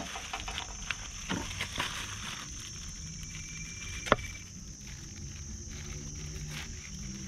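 Thin plastic bags rustling and crinkling as fingers pick at a knotted bag neck, in scattered small crackles with one sharper click about four seconds in.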